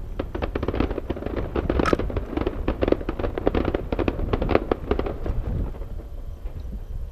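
Aerial fireworks going off in a dense, rapid run of crackling bangs, thinning out near the end.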